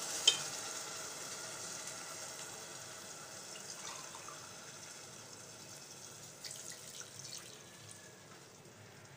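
Coconut milk being poured into a hot steel pot of ghee-fried rice: a liquid splash and a soft hiss that fade steadily. There is one sharp knock just after the start, and a few faint scrapes later on.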